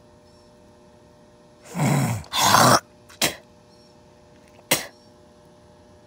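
A person coughs: two long coughs about two seconds in, then two short ones a second or so apart. Under them, a faint steady electric hum from the bare box fan motor.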